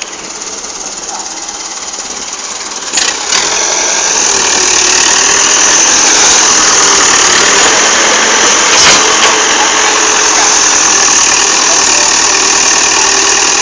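Excavator engine running steadily, getting much louder about three seconds in as it works harder, with a few sharp knocks.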